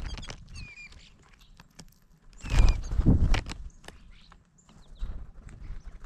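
Birds' wings fluttering and feet landing on a platform feeder tray close to the microphone, in a few thumping flurries with the loudest about halfway through. A few short high chirps from small birds come in between.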